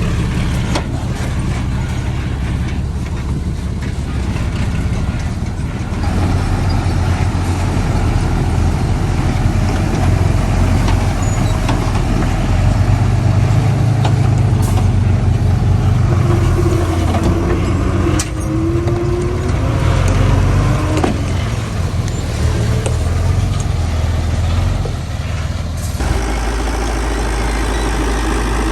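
Heavy diesel engines of earthmoving machinery running steadily under work. The sound grows louder about six seconds in and changes abruptly near the end.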